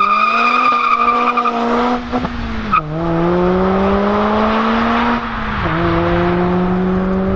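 Mazda MX-5 ND's 2.0-litre four-cylinder with cams and a full sport exhaust (header, race cat, middle and end silencers) accelerating hard through the gears. Revs climb in each gear, with two upshifts, about three seconds in and again about five and a half seconds in. A high steady whine runs over the first two seconds.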